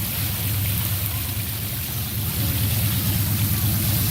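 Pump-driven fountain jet splashing steadily into a concrete pond, under a steady low rumble that grows a little louder about two and a half seconds in.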